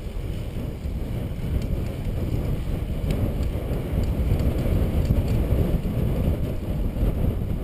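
Wind buffeting the microphone of a camera riding on a moving road bike, mixed with the rumble of tyres on a tarmac lane: a steady low rumble.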